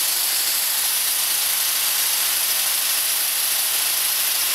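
A steady, even hiss, strongest in the high treble, with no engine beat or pitch in it.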